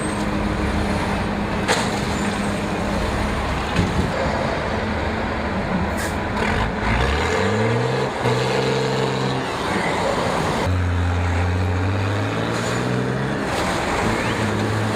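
Heavy diesel engines of an off-road vehicle and an excavator working under load. The engine note climbs in a rev about six seconds in and settles to a lower steady drone from about ten seconds.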